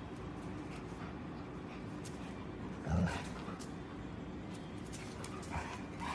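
Golden retriever gives one short, loud bark about three seconds in, followed by a couple of fainter yips near the end, as a puppy and an adult dog play.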